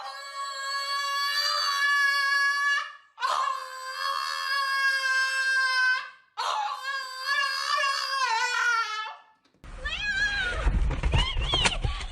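A dog howling: three long, steady howls of nearly three seconds each. About ten seconds in the sound changes to shorter, wavering high whines over a low rumbling noise.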